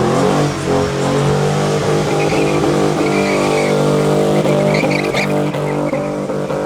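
Car engine revved up and held at high revs during a burnout, with tyres squealing from about two seconds in.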